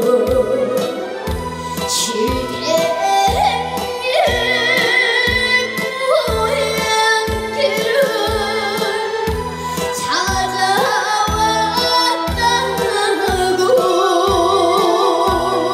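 A woman singing a trot song with wide vibrato over a backing track with a steady bass-and-drum beat.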